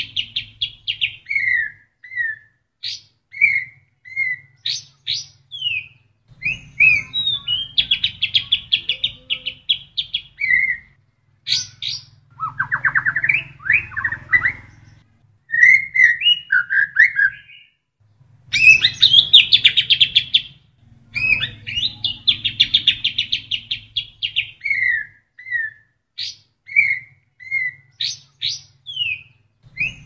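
White-rumped shama (murai batu) singing a varied song of fast trills, rattling phrases and short whistled slurs in bursts of a few seconds with brief pauses. The song is stuffed with phrases copied from the kapas tembak.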